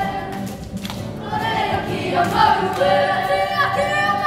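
A boys' kapa haka group singing a Māori song together, a group of young voices holding long notes.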